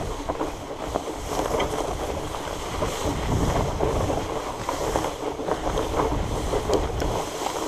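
Tall dry grass brushing and crackling against a Surly Moonlander fat bike and its rider as the fat tyres roll through an overgrown trail, with wind rumbling on the microphone.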